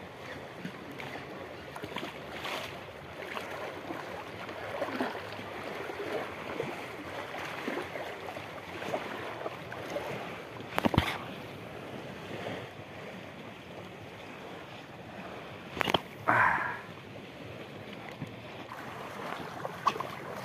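Small waves lapping and sloshing in shallow water along a rocky shore, a steady wash with small ticks. Two sharp knocks stand out, about halfway through and again about three-quarters through, the second followed by a brief louder noise.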